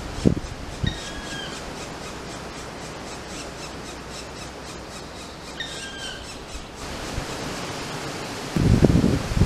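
Male black woodpecker at the nest hole giving two short, slightly falling calls about five seconds apart, over a steady background hiss. Near the end, wind buffets the microphone with a loud low rumble.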